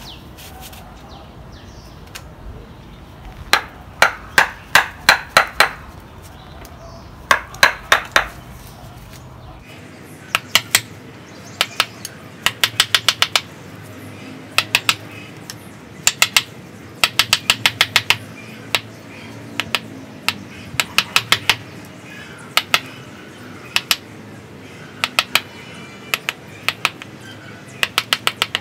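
A wood chisel driven by a wooden mallet, carving into the trunk of a ficus bonsai. The strikes are sharp, quick taps in bursts of about four to eight, with short pauses between bursts.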